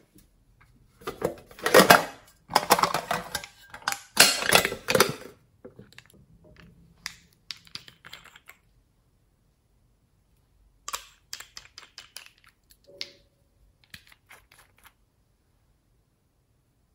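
Close-up clicking and crackling from small plastic containers being handled over slime: a dense run of sharp clicks for the first five seconds or so, then scattered clicks as a small bottle's cap is twisted off, and another run of light clicks near the end.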